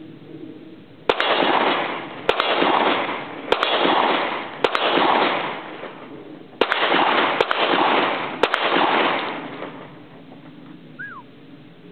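Seven pistol shots from a Colt Lightweight Commander 1911 in .38 Super, fired about a second apart with one longer pause midway, each shot followed by a long rolling echo.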